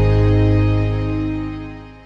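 Pop song's held final chord ringing out and fading away.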